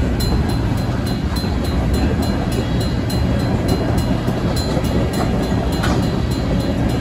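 Freight train tank cars rolling through a grade crossing: a steady low rumble of steel wheels on rail. Over it, the crossing's Safetran mechanical bell ringing in quick, even strokes.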